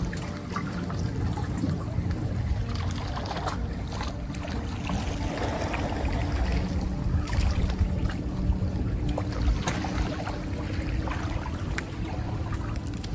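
Seawater lapping and trickling among shoreline rocks over a steady low rumble.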